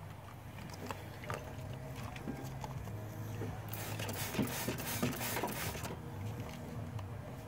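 Quart bottles of motor oil being handled and poured into a GMC Yukon's engine filler neck: scattered plastic clicks and knocks, then a rush of pouring noise with quick glugging clicks about four seconds in, over a steady low hum.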